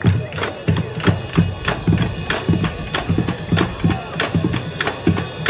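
Marching band drumline playing a steady beat: bass drums and snares striking about three to four times a second.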